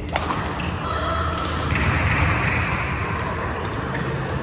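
A badminton racket strikes the shuttlecock once, sharply, near the start. After that there is a steady background of noise echoing in the large hall.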